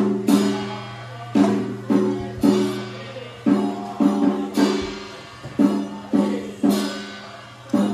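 Percussion music: loud strikes in a repeating group of three about every two seconds, each ringing on with a pitched tone, over a steady low hum.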